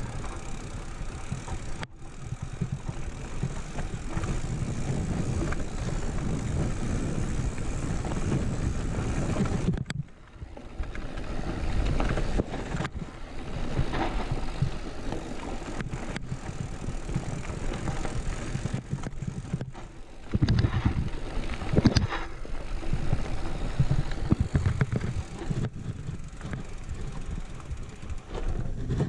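Wind buffeting the camera's microphone as a mountain bike rolls over dry gravel and rock, with tyre crunch and frame rattle. The noise dips briefly about a third of the way in, and a few harder knocks from bumps come about two-thirds of the way through.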